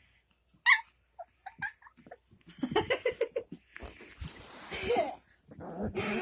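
Two dogs play-fighting: a sharp yelp about half a second in, then a quick run of short yips and grunting noises, and a longer raspy breath in the middle.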